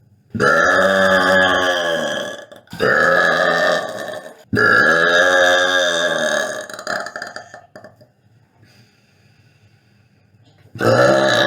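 A woman burping loudly: three long burps one right after another, then another one starting near the end.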